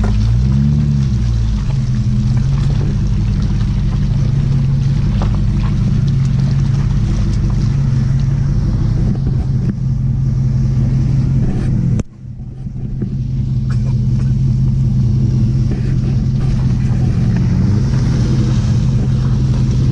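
Jeep Grand Cherokee 4.7 L V8 running through aftermarket Flowmaster mufflers while it works through mud, with a deep, steady exhaust note. It revs up briefly near the start, dips suddenly about twelve seconds in, then builds back up and rises again near the end.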